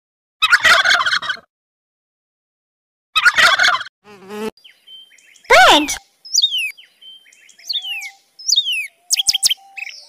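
A turkey gobbling twice, then a loud falling cry, followed by a songbird whistling a series of quick descending notes.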